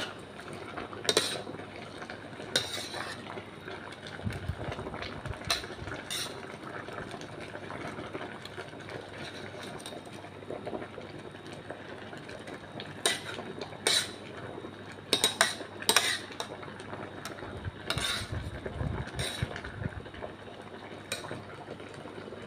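A metal mesh skimmer clinking and scraping against a stainless steel saucepan as spaghetti is stirred in boiling water: about a dozen irregular clinks over a steady hiss of the boiling water.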